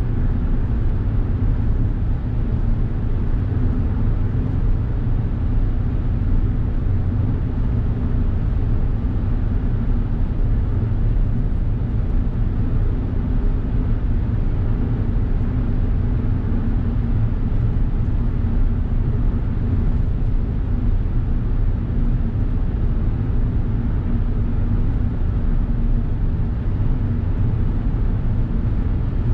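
Steady low drone of tyre, road and engine noise inside a Suzuki Hustler's cabin while it cruises through a highway tunnel, with a faint even hum underneath.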